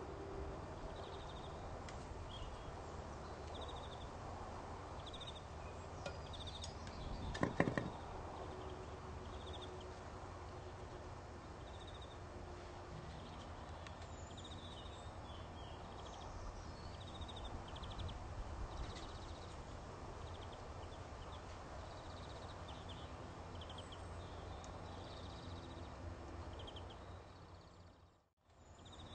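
Garden ambience: small birds chirping in short repeated calls over a low steady hum, with one sharp knock about seven seconds in.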